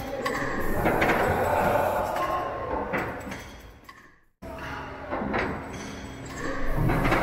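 Working steam pumping-engine machinery clattering, with repeated knocks. The sound fades away about four seconds in, then comes back abruptly with a steady low hum and a few knocks.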